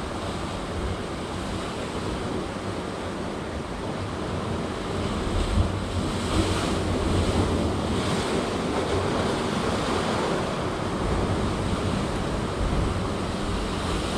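Sea surf breaking and washing over rocks along a rocky shoreline, with wind buffeting the microphone. The surge swells louder about five to eight seconds in as a bigger wave breaks.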